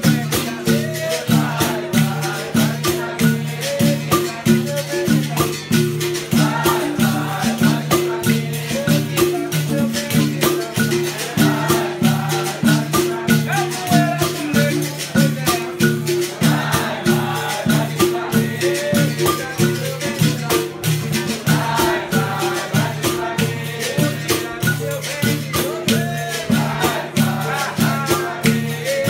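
A capoeira bateria plays a steady rhythm: berimbaus with caxixi shakers rattling, pandeiros and an atabaque drum. Voices sing over it at intervals.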